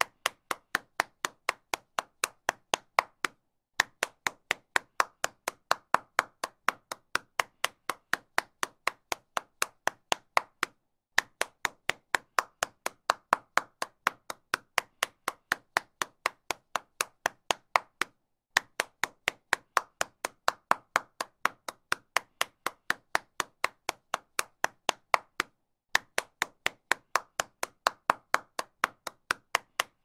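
A single person clapping hands in a steady rhythm, about three claps a second, with a brief pause roughly every seven seconds.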